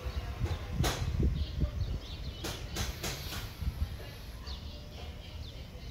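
Outdoor ambience: an uneven low rumble of wind on the microphone, with a few sharp clicks about one and three seconds in and faint bird chirps.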